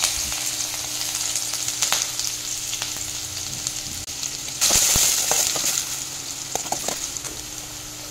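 Chopped onions sizzling in hot oil in a steel kadai, a steady crackling hiss that slowly fades. About four and a half seconds in the sizzle flares up louder, with a few light clicks of a steel ladle stirring against the pan.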